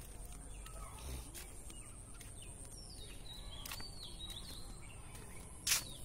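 Birds calling outdoors, short curving chirps repeated every second or so, over a thin steady high tone in the background. A single sharp click near the end is the loudest sound.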